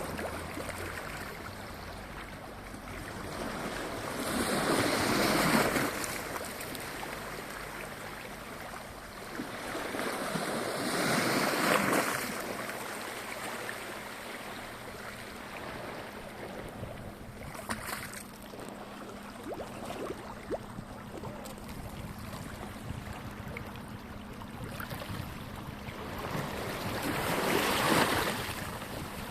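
Gentle sea waves washing in on a calm sea: a steady wash with three slow surges that build and fade over a couple of seconds each, one a few seconds in, another about six seconds later, and one near the end.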